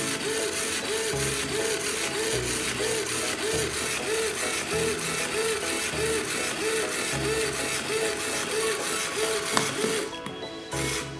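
Small electric motor in a homemade cardboard massager whirring steadily as it spins the head of wooden pins. The whirr drops away about ten seconds in, as a button on the box is pressed.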